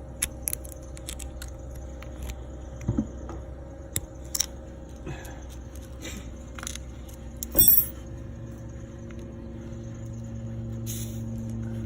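Small metallic clicks and clinks of a TPMS valve-cap sensor and tyre valve stem being handled, with one louder short burst about three-quarters of the way through. A low steady hum builds up near the end.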